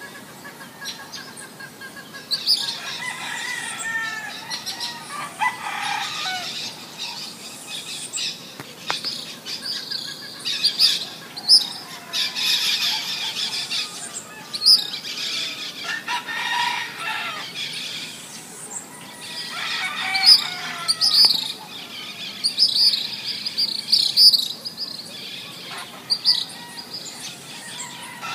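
Many birds chirping and calling at dawn, with a rooster crowing partway through.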